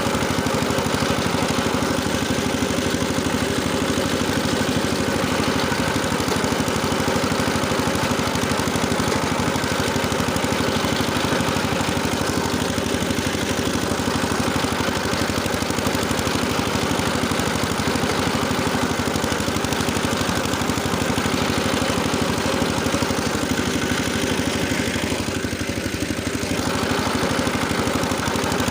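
Engine driving a rotary tiller, running steadily while the tiller works ploughed ground, with a slight dip in level near the end.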